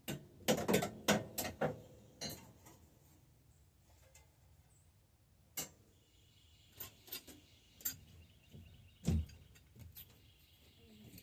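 Metal bicycle parts and tools clinking and knocking as they are handled: a quick run of clinks in the first second and a half, then scattered single knocks, with a heavier low knock about nine seconds in.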